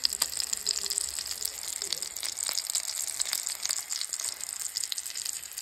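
Whole pompano fish sizzling and crackling as it fries in a pan, a steady spatter of tiny pops.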